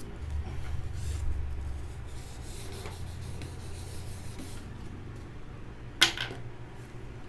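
Faint rubbing and handling of plastic speed-cube pieces while lubricating and wiping them, with one sharp click about six seconds in.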